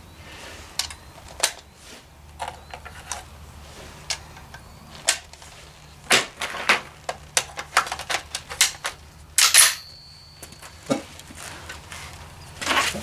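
Quick metallic clicks and clacks of cartridges being loaded into an M1A rifle magazine and the rifle being readied. A louder clack about nine and a half seconds in leaves a brief ringing tone.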